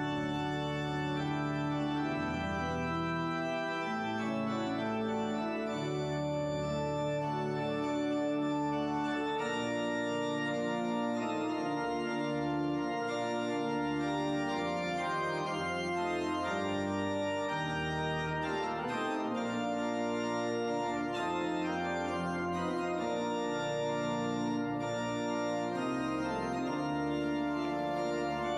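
Church organ playing full sustained chords over deep pedal bass notes, the chords changing every second or two without a break.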